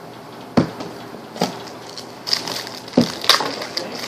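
Trading cards and a foil card-pack wrapper being handled: crinkling, with a few sharp snaps and clicks.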